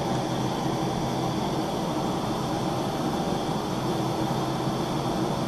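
Two Bernzomatic TS4000 gas torches firing into a small melting kiln, a steady, even rushing noise of burning gas as the kiln warms up.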